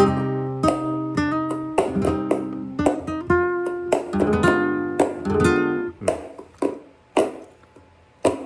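Flamenco guitar played with strummed chords and picked single notes. The playing stops about six seconds in, leaving a few isolated sharp percussive strikes.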